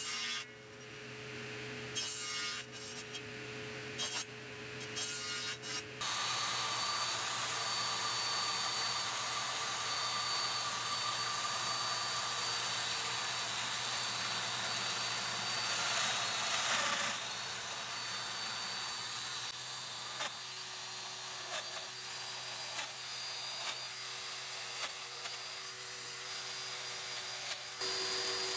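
Plunge router with dust extraction running and cutting along a slotted jig in a hardwood board, a steady whine that starts about six seconds in and drops to a lower, steadier level past the halfway point. Scattered knocks and clicks come before and after.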